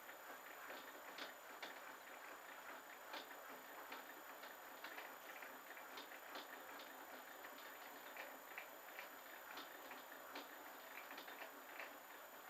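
Clarke CL500M mini lathe running under power on a light scratch pass for a left-hand thread: a steady whirr from the motor and gears with irregular ticking and clicking throughout.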